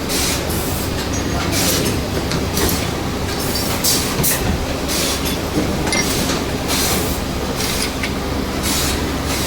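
Machinery on a charging-cable production line running: a steady clattering hum with short hisses repeating about once a second.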